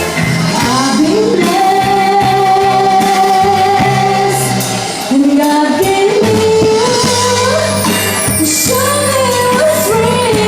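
Live band playing a slow pop ballad: a lead melody of long held notes that slide between pitches, over bass, drums and cymbals.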